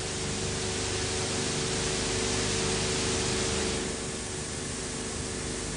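Steady hiss and static with a steady low hum, the background noise of an old film's soundtrack transfer; the hiss eases a little about four seconds in.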